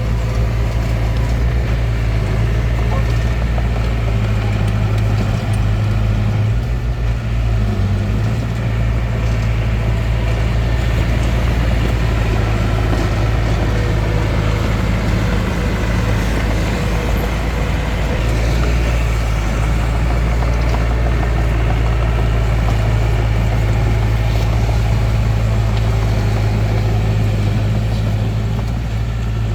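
Bulldozer's diesel engine running steadily with a deep, even hum.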